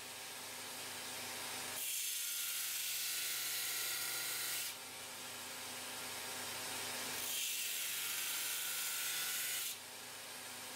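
Belt grinder running, with a blade of leaf spring steel pressed against the abrasive belt in two grinding passes of about three seconds each. Each pass is a bright, hissing rasp over the grinder's steady hum.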